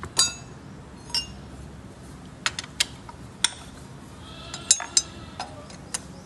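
Metal hand tools clinking against the parts of a diesel engine being dismantled: about ten sharp, ringing metallic clinks at irregular intervals, the loudest just after the start and about two-thirds of the way through.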